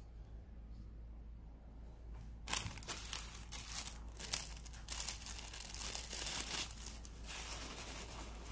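Packaging crinkling and rustling with sharp crackles as the next piece of jewellery is unwrapped, starting about two and a half seconds in; before that only faint room tone.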